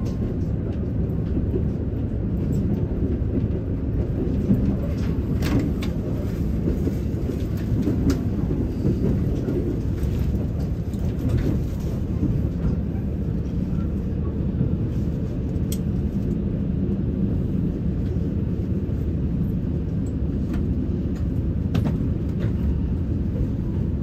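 Cabin noise inside a KiHa 85 series diesel railcar running into the station: a steady low rumble of engine and wheels, with a few sharp clicks as the wheels cross rail joints and points.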